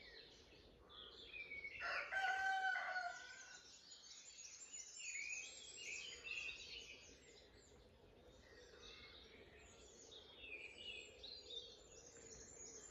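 A chorus of many small songbirds chirping and singing, with a rooster crowing once, loudly, about a second and a half in.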